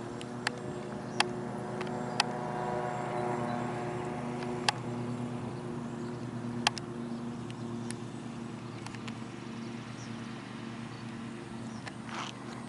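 A radio-controlled model airplane's motor running as a steady hum, swelling slightly a few seconds in, with several sharp clicks scattered through the first seven seconds.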